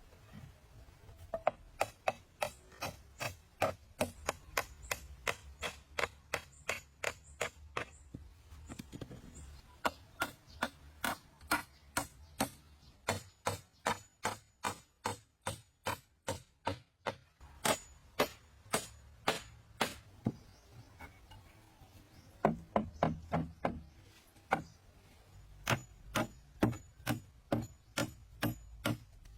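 A hand tool striking wood in quick, even blows, about two to three a second, in runs broken by a few short pauses.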